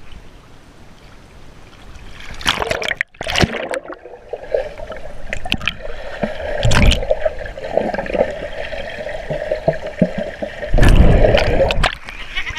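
Splashing as a swimmer and her action camera go under the water of a swimming pool, then the muffled sound of being underwater with a steady hum, and more splashing as they break the surface near the end.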